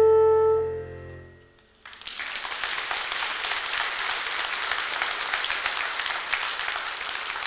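A euphonium holds the final note of the solo over a low sustained note from the stage piano, and the sound fades away within the first second and a half. After a brief hush, the audience breaks into steady applause about two seconds in.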